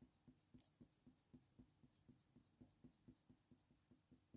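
Coloured pencil lead scratching faintly on hot-press watercolour paper in short, quick strokes, about four a second, as a Faber-Castell Polychromos pencil lays in shading.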